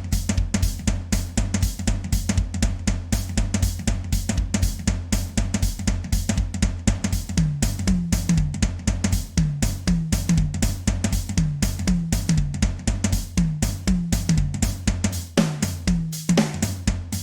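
Drum beat on a kit: bass drum, snare, hi-hat and cymbals playing a fast, steady rhythm of about four to five hits a second. From about halfway, short low notes that drop in pitch recur with the hits.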